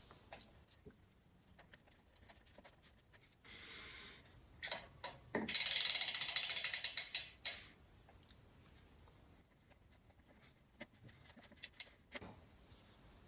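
A fast run of ratchet clicks lasting about two seconds, just past the middle, with scattered single clicks and taps before and after.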